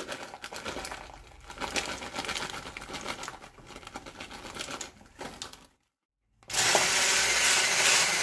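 Raisins shaken out of a crinkling plastic bag into a plastic beaker, with light irregular ticks as they drop. After a brief cut, a hand-held immersion blender runs steadily, blending cottage-cheese casserole batter; the blender is the loudest sound.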